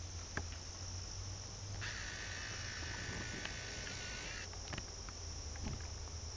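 Steady high-pitched chirring of an insect chorus, crickets. From about two seconds in to a little past four seconds a second, lower steady buzzing tone joins it, then cuts off.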